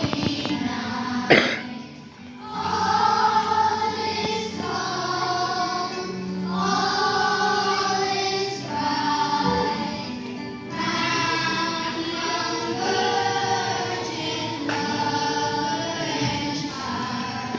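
A choir singing a song, with a sharp knock about a second in.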